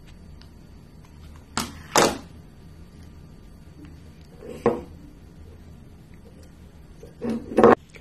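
Short, sharp knocks of twigs, a glass jar and a hot glue gun being handled on a wooden tabletop: a pair of knocks, a single one, then another pair.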